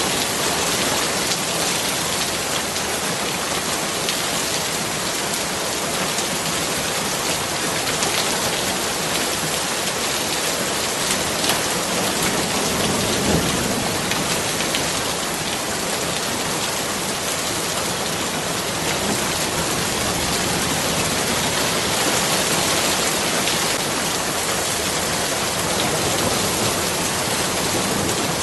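Steady rain falling, an even dense hiss with a brief louder swell about thirteen seconds in.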